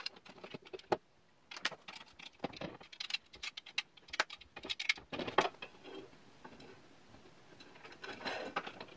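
Scattered light metallic clicks and taps as aluminium extrusion rails and angle brackets are handled and fitted together, with a small cluster of clinks about five seconds in.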